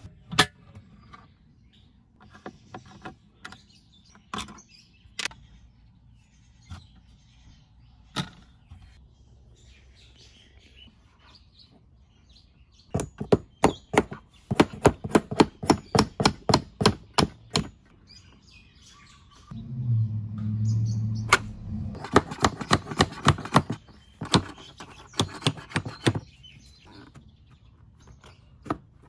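Runs of quick, sharp taps, about four or five a second, on the hinge pin of a plastic motorcycle top case as the pin is worked out of the hinge, with scattered single clicks and a short low hum partway through.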